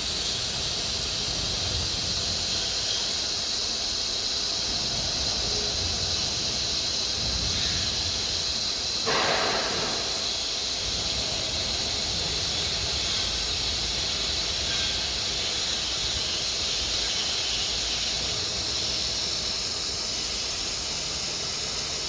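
Steady high-pitched hiss in a CNC workshop, with a brief louder rush of noise about nine seconds in.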